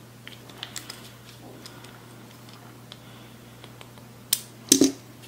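Faint small ticks of a T8 Torx driver turning the pivot screw of a CKC Sleeper folding knife to adjust the blade's centring. About four seconds in come two sharp clicks.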